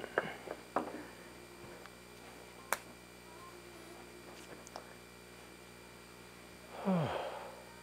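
Clothing rustle and a few soft knocks as a person settles cross-legged onto a floor cushion, picked up close by a clip-on microphone over a faint steady hum. There is a single sharp click a little under three seconds in, and near the end a short sound that falls steeply in pitch.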